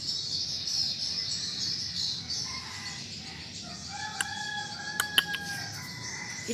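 A rooster crowing, one long held call in the second half, over a steady high-pitched chirring. A few sharp clicks come about five seconds in.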